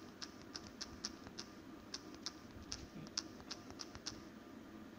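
A password being typed on a smartphone's on-screen keyboard: a faint string of short, sharp key-tap clicks, about three a second and unevenly spaced.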